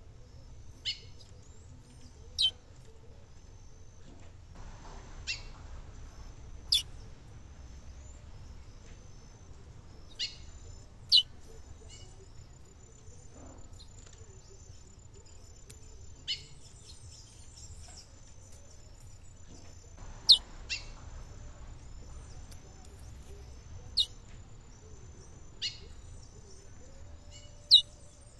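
Female curió (chestnut-bellied seed-finch) calling: about a dozen single short, sharp notes, each falling steeply in pitch, at irregular intervals of one to four seconds. This is the female's call used to excite a male curió into singing. A faint steady high buzz runs underneath.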